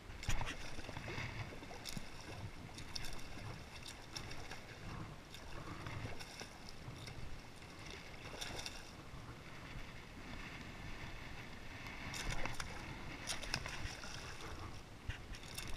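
Water lapping and splashing against a kayak hull, with wind on the microphone. Sharper splashes come about twelve to fourteen seconds in as a hooked redfish thrashes at the surface beside the kayak.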